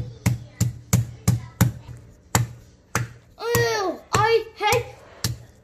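Spiked meat-tenderizer mallet pounding a cucumber on a plastic cutting board, sharp blows about three a second, slowing to a few single blows after about two and a half seconds. A high-pitched voice calls out three times in the middle.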